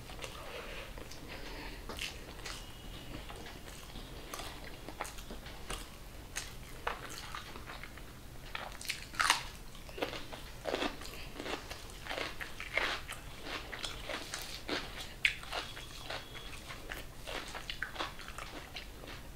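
A person eating rice and egg masala by hand, close to the microphone: irregular chewing and wet mouth smacks mixed with the soft clicks of fingers working the food on a metal plate. The loudest smack comes about nine seconds in.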